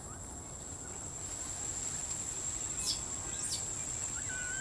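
A steady, high-pitched insect drone, with two short high chirps about three seconds in and a brief whistle-like call near the end.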